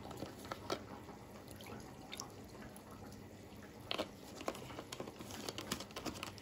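Milk poured from a carton onto a raw egg in a ceramic plate: faint trickling and dripping, with scattered small ticks and a light knock about four seconds in.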